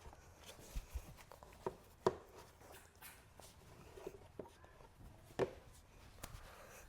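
Scattered light knocks and clicks of a lawn mower's air filter and its housing cover being handled and fitted in place, the sharpest about two seconds in and again past five seconds.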